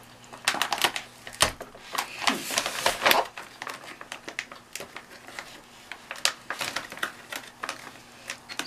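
Clear plastic bag around a spool of 3D-printer filament crinkling and crackling as it is handled and cut open with a small pocket knife. The crackles come irregularly, busiest in the first three seconds and sparser after.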